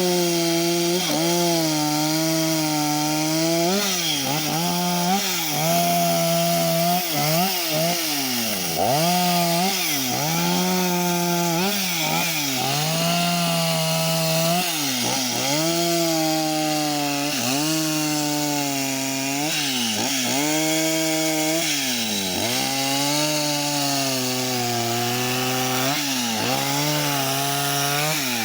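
Chainsaw running at high revs while carving wood. Its engine pitch sags repeatedly, every second or two, as the chain bites into the wood, and climbs back each time the cut eases.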